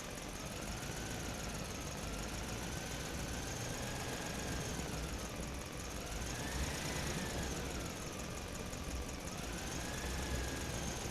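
Truck engine running steadily, with a thin whine over its rumble that slowly rises and falls in pitch several times.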